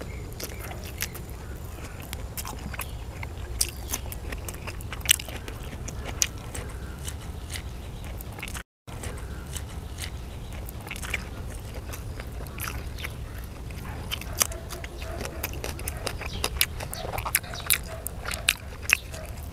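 A man chewing and biting grilled Isan sausages up close, with wet smacks and sharp clicks of the mouth scattered throughout over a steady low rumble. The sound cuts out for a moment about nine seconds in.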